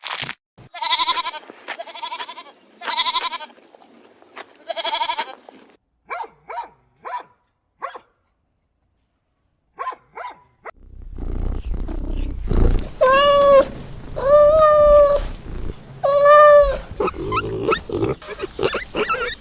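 A series of farm-animal calls from separate clips. First come three loud, quavering cries and a few short clicks. After a brief silence, three longer arching calls sound over steady outdoor background noise, then short grunts near the end.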